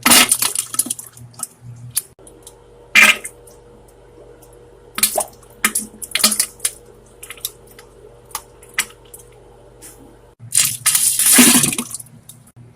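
Wet, splattering diarrhea fart sounds in several separate bursts, with a longer, louder wet blast near the end.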